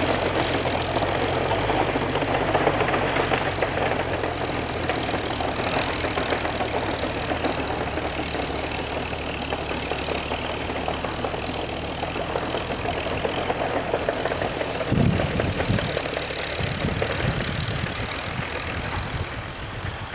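An engine idling steadily, with a few low thumps about fifteen seconds in.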